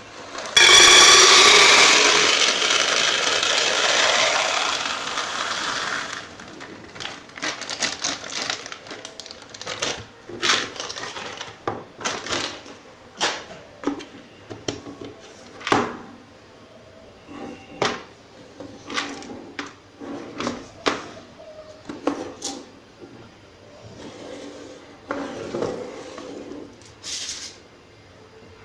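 Dried chickpeas poured from a plastic bag into an empty Pringles tube: a loud rattling rush of grains that starts about half a second in and fades away over about five seconds. Scattered taps and knocks of the tubes and bags being handled follow.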